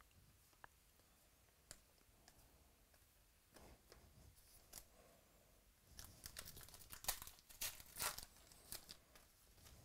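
A trading-card pack wrapper being torn open and crinkled by hand. A dense run of sharp tearing and crackling fills the second half, after a few soft clicks and rustles of cards being handled.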